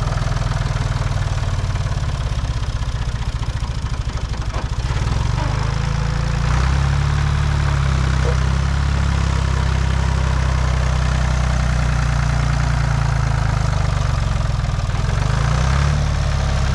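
A farm tractor's engine running steadily under load as it tows a car on a chain; its note shifts and grows stronger about six seconds in, and changes again near the end.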